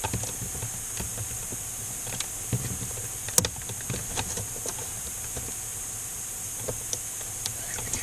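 Scattered light clicks and taps of hands handling plastic parts and wiring inside a Zehnder ComfoAir Q ventilation unit, the sharpest click about three and a half seconds in, over a steady hiss.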